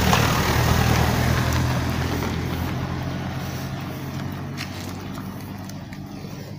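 A road vehicle's engine and tyres passing close by, loudest at first and then fading steadily as it drives away.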